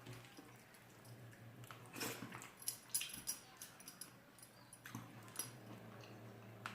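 Close mouth sounds of someone eating rice and curry: chewing with wet lip smacks and a few sharper clicks, over a faint steady hum.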